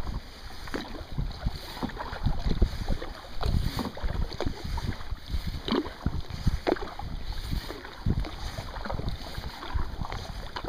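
Kayak paddle strokes, the blades splashing and dripping in the water, in an uneven run of short splashes. Wind buffets the microphone with low rumbles.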